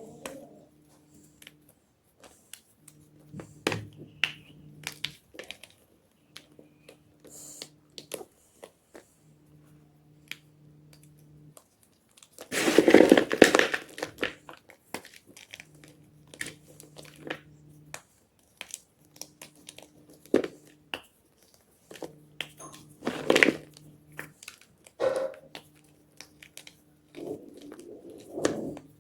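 Blocks of gym chalk crunching and crumbling, with many small crisp cracks and crackles. A louder, longer crunch comes about halfway through, and a few sharper ones follow near the end.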